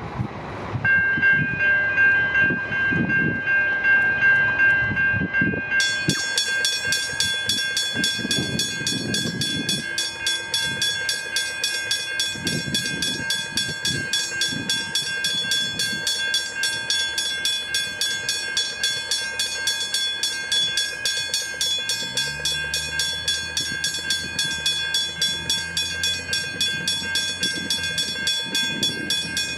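Level crossing bells ringing in a fast, even rhythm as the crossing activates. A second, brighter bell joins abruptly about six seconds in. A low steady hum of the approaching train comes in near the end.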